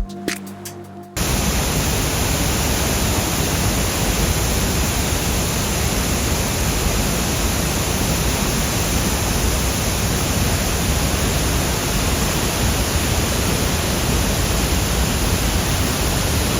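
Steady roar of a nearby waterfall, loud and unchanging, after a short stretch of background music that stops about a second in.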